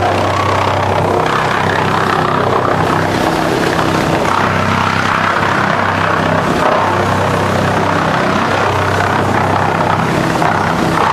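DFR4-550s drum chipper running while chipping wood offcuts. A steady low machine hum sits under a rougher chipping noise that swells and fades as the wood goes through.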